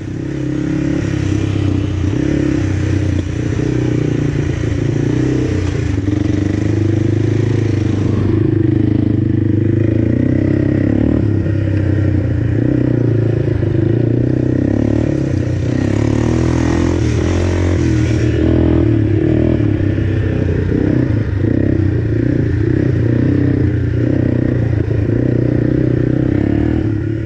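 Quad (ATV) engine running continuously at fairly steady revs, with small rises and falls in pitch and some clattering.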